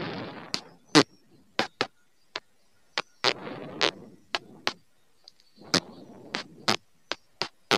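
A string of irregular sharp clicks and knocks, with short rushing noisy bursts in between.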